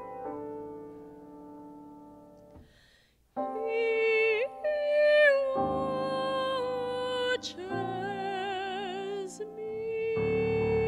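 A piano chord fades away, then a woman sings solo, holding long notes with vibrato. The piano comes back in under her voice near the end.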